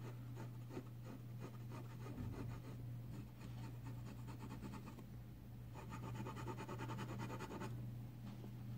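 Jinhao X750 fountain pen's 0.5 mm nib scratching on paper in quick back-and-forth hatching strokes, faint, growing louder for about two seconds past the middle.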